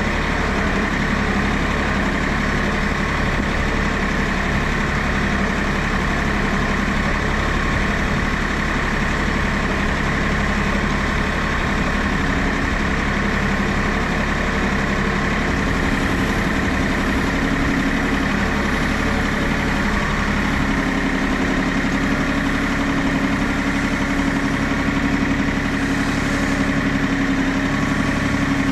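Engine running steadily at a constant speed, as used to work a firewood splitter; its note shifts and strengthens about two-thirds of the way through.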